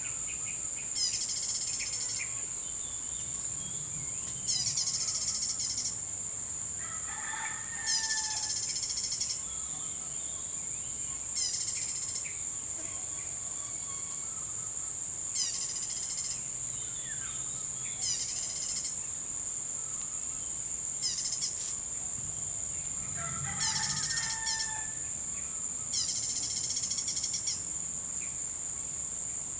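Tropical bush ambience: a steady high insect drone, a bird repeating a short chirping call every few seconds, and a feral rooster crowing twice, once about a quarter of the way in and again later on.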